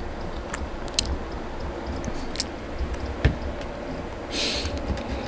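Small plastic parts of a Nendoroid figure handled by hand: a few light clicks, a soft knock about three seconds in, and a brief rustle near the end.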